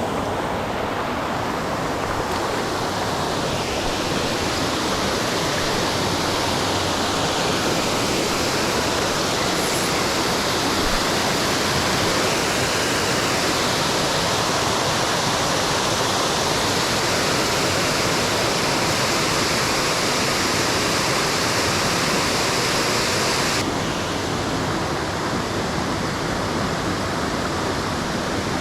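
Mountain stream water rushing steadily over rocks, an even hiss that gets brighter about two seconds in and duller near the end.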